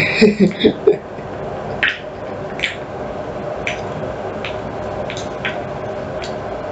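Electric kettle heating toward the boil with a steady rumbling hiss, and about seven short ticks or clicks at irregular intervals.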